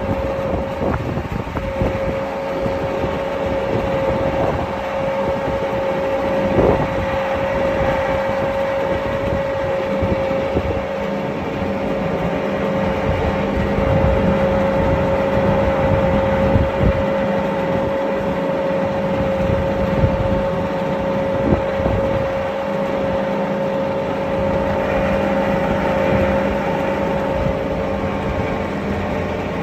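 Twin-screw TMR feed mixer running steadily as it blends a load of feed, with a constant hum and whine from the machinery.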